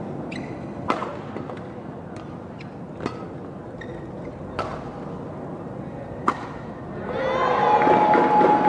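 Badminton rally: sharp racket strikes on the shuttlecock every one and a half to two seconds, with brief squeaks of court shoes between them. About seven seconds in, loud crowd cheering and shouting swells up as the rally ends.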